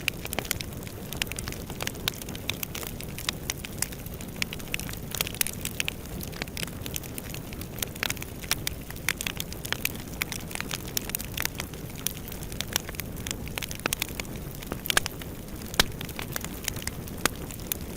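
Wood fire burning in a fireplace, crackling with frequent irregular sharp pops over a steady low rumble, a couple of louder pops near the end.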